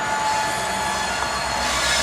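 A train rolling past with a continuous rumble and its wheels squealing on the rails in thin, steady high tones.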